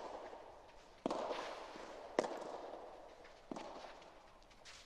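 Soft tennis rally: the rubber ball is struck by rackets three times, about a second apart, each hit a sharp pop that echoes under the roof, with faint shoe scuffs on the court.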